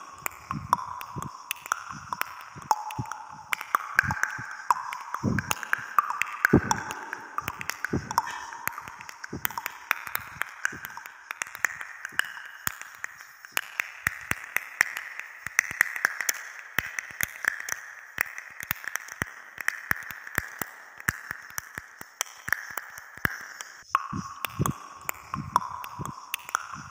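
Soft background music with a ringing, chime-like melody, over many short, irregular clicks and taps.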